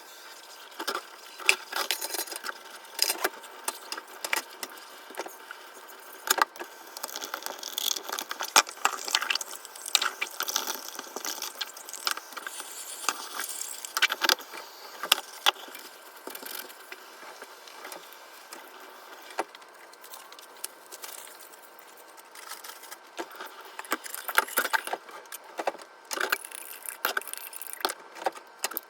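Irregular clinks, knocks and clatter of small hard objects being handled during cleaning, in uneven clusters with short lulls.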